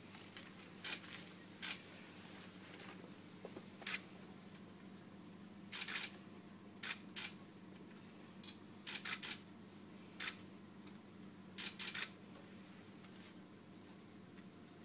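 Marker pen scratching across a football shirt in short, irregular strokes as it is signed, over a faint steady low hum.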